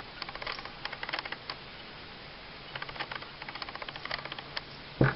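Quick runs of light clicks and rattles as a pistol's barrel and small metal parts are handled and rubbed with lubricant, then one sharp knock about five seconds in.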